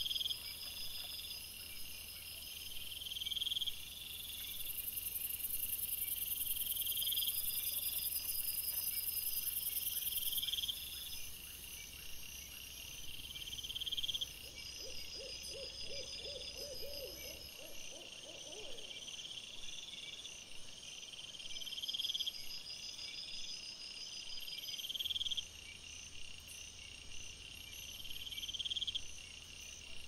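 Night insects chirping in a steady repeating pattern over hiss from the trail camera's microphone. Past the middle comes a short run of rapid low pulses rising slightly in pitch.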